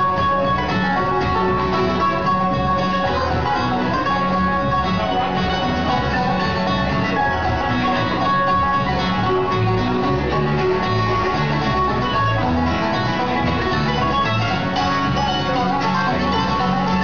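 Bluegrass band playing live: banjo and acoustic guitars picking a brisk instrumental passage.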